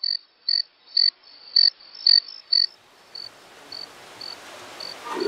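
Night-time chirping of a small animal: a short, high chirp repeating evenly about twice a second, loud at first and fainter from about three seconds in, over a faint hiss.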